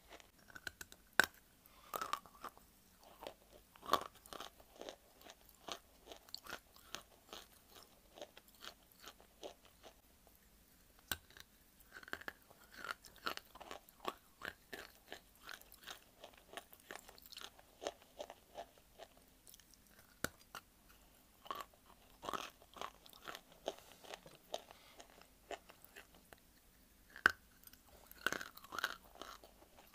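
Lumps of dry white clay being bitten and chewed: irregular sharp crunches, with a few much louder bites standing out among quieter chewing.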